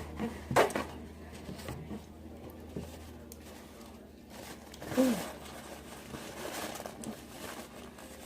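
Close-up eating and handling noises: scattered crunches and rustles from biting and chewing tacos, the loudest about half a second in, with a short pitched vocal sound about five seconds in.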